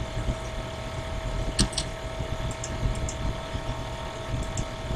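Steady low background hum and hiss with a faint constant tone, broken by a few brief, faint noises, such as a breath or a click.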